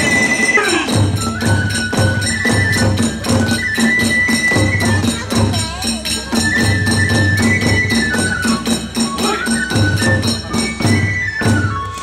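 Hiroshima kagura accompaniment music. A bamboo flute plays a held, stepping melody over a fast, steady clatter of hand cymbals and beats on a taiko drum.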